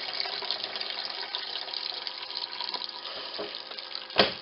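Drain water from a twin tub washing machine running out of its drain hose into a pail, a steady splashing that tapers off as the flow slows. A single sharp click near the end.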